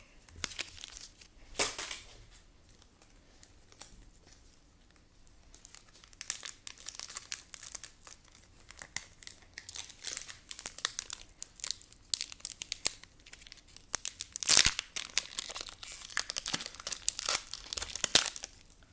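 Foil wrapper of a Pokémon card booster pack being crinkled and torn open. A sharp crackle comes about two seconds in, then a few quieter seconds, then sustained crinkling with a loud crackle about three-quarters of the way through.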